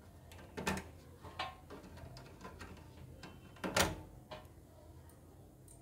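Short plastic-and-metal clicks and knocks from removing the old CPU cooler's mounting parts from a motherboard, scattered, with two louder knocks about half a second in and near four seconds in.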